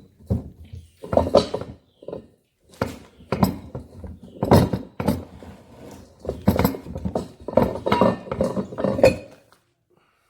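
Metal clanking and knocking from hand tools and steel parts being handled on a hydraulic cylinder during its teardown, a string of irregular clanks that stops shortly before the end.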